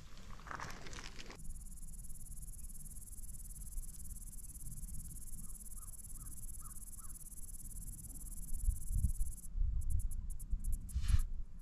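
A crow cawing faintly five times in quick succession, over a steady high hiss. Low rumbling follows near the end, with a brief noisy burst.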